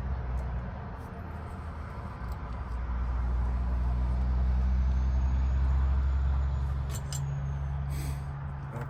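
Low engine rumble of a motor vehicle, swelling in the middle and easing off again, with a few small sharp clicks near the end.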